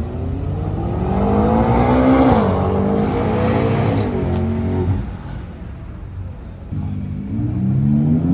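Supercar engine accelerating hard, revs climbing to a sharp upshift about two seconds in, pulling through another shift, then fading as the car drives away. Near the end, an engine revs up again.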